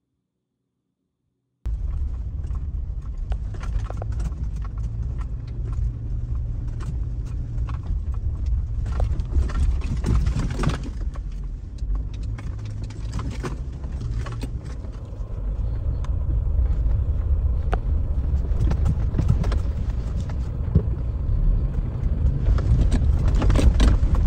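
Jeep Wrangler driving along a rough dirt trail: a steady low rumble with scattered knocks and rattles as it jolts over ruts and bumps. It starts abruptly about two seconds in and gets somewhat louder in the second half.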